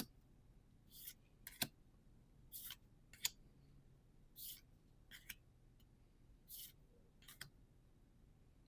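Trading cards being slid and flipped one at a time: short, soft swishes about once a second, a few of them with a sharp click.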